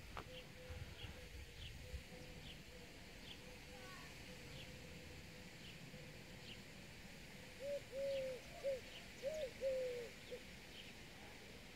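A dove cooing: a short run of about six low, rounded coos starting nearly eight seconds in. Under it, faint high chirps repeat about every three-quarters of a second.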